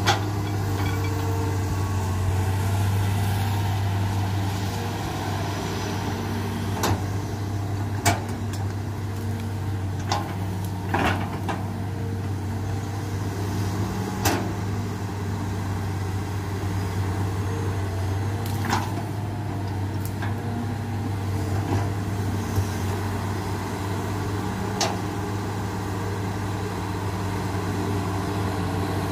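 Hitachi hydraulic crawler excavator's diesel engine running at a steady low hum while it digs wet mud, with about eight sharp metallic knocks and clanks from the working arm and bucket at irregular intervals.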